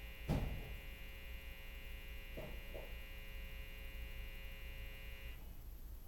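Steady buzz from a loudspeaker picking up interference from a lit neon sign, over a low mains hum; the buzz cuts off suddenly about five seconds in as the neon is switched off. A loud thump comes just after the start.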